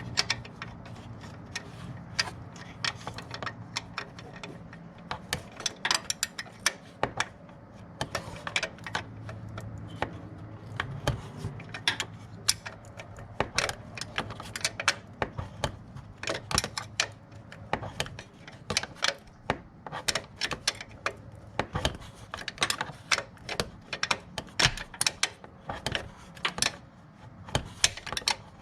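Hand tools clicking and clinking on metal, sharp irregular clicks a few times a second and sometimes in quick runs, during belt tensioner work on a 1998 Chevy Cavalier's 2.2-litre four-cylinder. A low steady hum sits underneath.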